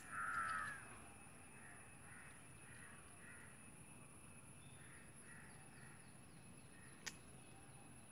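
Crow cawing: one loud, harsh caw at the start, then fainter caws repeating in the background. A single sharp click comes about seven seconds in.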